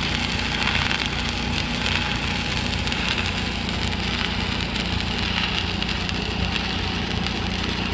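Pipeline welding arcs crackling and hissing steadily on a 20-inch pipe joint, over the steady drone of an engine-driven welding machine running.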